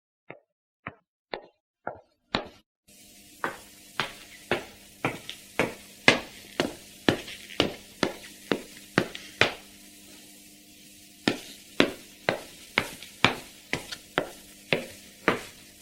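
Footsteps of leather dress shoes (pantofel) walking at about two sharp clicking steps a second, with a pause of about a second and a half partway through before they carry on. From about three seconds in, a steady low hum runs beneath the steps.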